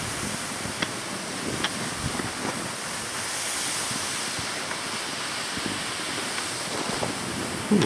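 Skis sliding downhill over snow, with a steady rushing hiss and wind noise on the microphone. There are a few faint clicks, and a short low thump near the end.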